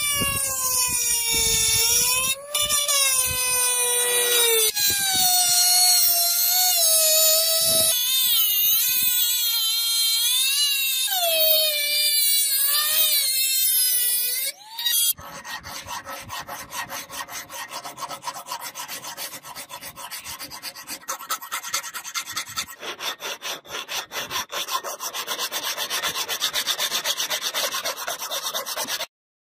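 A small handheld rotary tool whining on a steel sword blade, its pitch dipping and rising as it bears on the metal. About halfway, this gives way to a hand file rasping along the blade's edge in quick repeated strokes.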